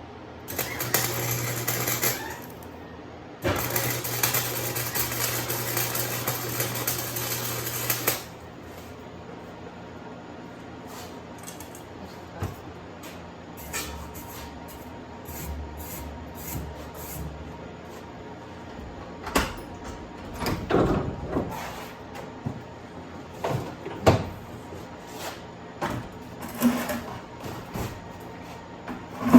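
Wire-feed welder arcing in two runs, a steady buzzing crackle of about two seconds and then about four and a half seconds, followed by scattered clicks and knocks of metal parts being handled.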